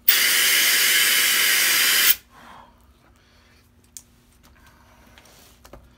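Air-compressor blow gun blasting compressed air through the bore of a Mossberg MVP bolt-action rifle to blow out the barrel after cleaning patches: one loud hiss of about two seconds that starts and cuts off sharply. A faint click follows about four seconds in.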